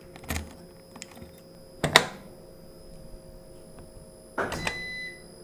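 Keys and controls on a CNC lathe being handled: a few sharp clicks, the loudest about two seconds in, then a short rattle with a brief high beep near the end.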